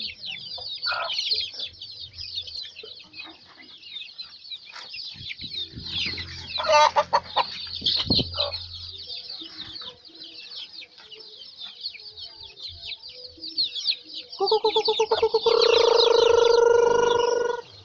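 A crowd of chicks peeping without pause in rapid high cheeps, with adult hens clucking now and then. Near the end a loud drawn-out call from an adult chicken, stuttering at first and then held, lasts about three seconds.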